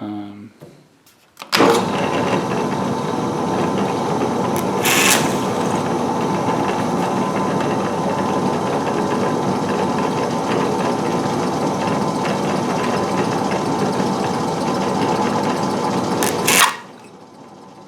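Drill press starting up and running steadily for about fifteen seconds, with a brief louder burst about five seconds in, then switched off.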